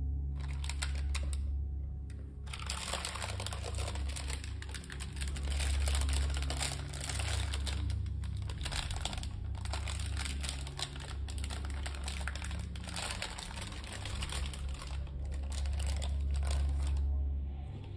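Crinkling and rustling of plastic and paper wrapping handled by rubber-gloved hands, near-continuous with a short pause about two seconds in, stopping shortly before the end.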